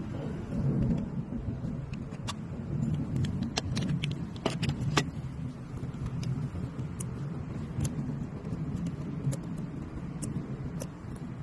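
Sharp metallic clicks and taps from hand tools and engine parts as the ignition coil pack and spark plugs are refitted, with a cluster of clicks about midway, over a steady low rumble.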